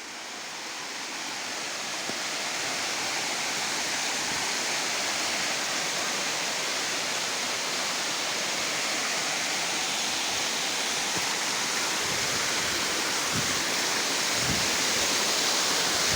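Waterfall of about a 20-metre drop: a steady rush of falling water that grows louder over the first few seconds.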